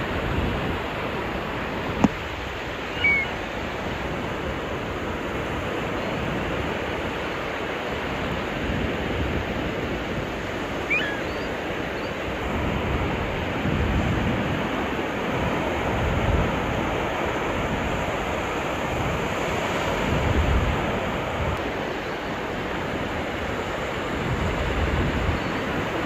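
Ocean surf breaking and washing up the beach: a steady rush of waves with swells of low rumble. A single sharp click comes about two seconds in, and two brief high chirps are heard, one about three seconds in and one about eleven seconds in.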